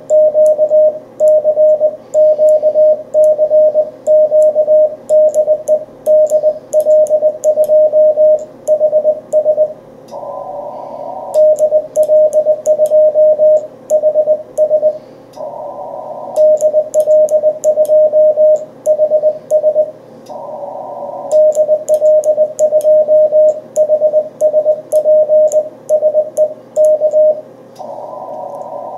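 Morse code (CW) sidetone from an amateur radio transceiver: a steady beep keyed by hand in dots and dashes on a paddle key, with light clicks from the key's contacts. In the pauses between groups, the receiver's filtered band hiss comes up briefly three times, and again near the end.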